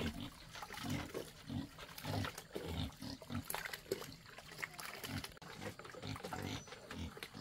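Pigs grunting over and over, about two short grunts a second, over water running from a hose into a plastic bucket.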